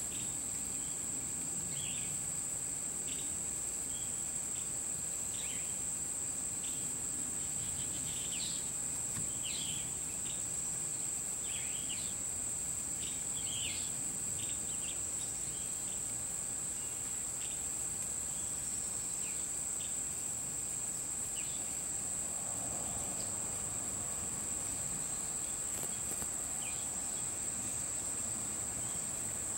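Steady, high-pitched insect chorus trilling without a break, with scattered short chirps during the first half.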